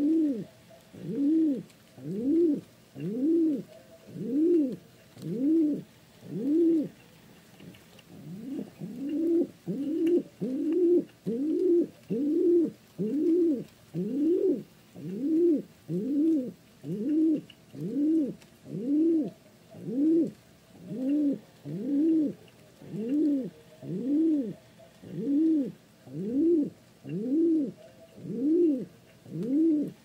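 Pigeon cooing: a steady run of short, low coos, each rising then falling in pitch, about one and a half a second, with a brief pause a few seconds in.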